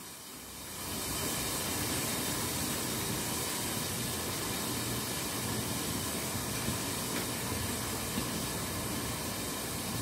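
A steady, even hiss with no pitch or rhythm, coming up about a second in and holding level.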